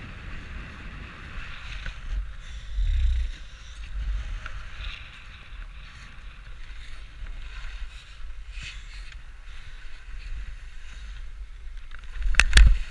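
Wind rumbling on an action camera's microphone, with a steady hiss of skis on snow. A few sharp knocks come near the end as the skier drops into steep snow.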